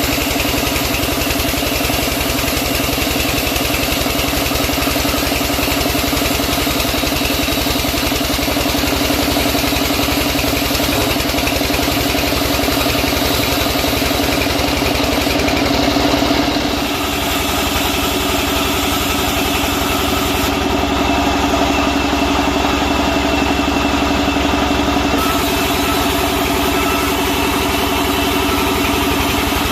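Sawmill machinery running steadily with an engine-like hum. Its tone shifts abruptly about halfway through and then runs on steadily.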